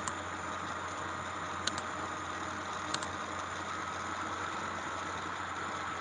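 Steady background hiss with a low hum and a thin steady whine from an open call microphone, broken by a few short sharp clicks, one at the start and two more about one and a half and three seconds in.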